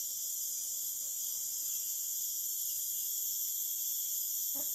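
A steady, high-pitched drone of a forest insect chorus, unbroken throughout.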